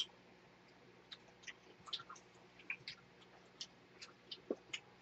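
Faint eating sounds: irregular small clicks of chewing and of spoons against dishes.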